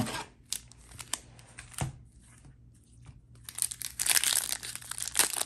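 A few light knocks as a booster pack is taken from its cardboard display box. From about three and a half seconds in, the pack's foil wrapper is torn open with a dense crinkling and crackling.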